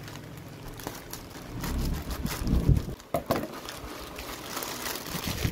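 Scissors cutting into a thin plastic mailer bag, then the plastic crinkling and rustling as hands pull it open, densest near the end. Dull handling thumps about two to three seconds in.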